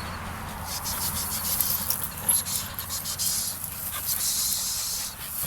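A dog tugging and shaking at a hanging rope, with scuffling noise and a run of sharp clicks.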